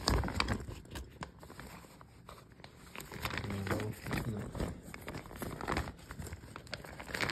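Rustling and crinkling of a zippered nylon stuff sack being handled and opened, with scattered light clicks and knocks of gear inside it.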